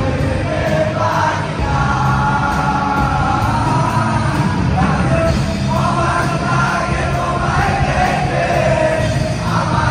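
A live rock band plays a song through a PA, with electric guitars, an acoustic guitar and a drum kit under a male singer holding long sung lines.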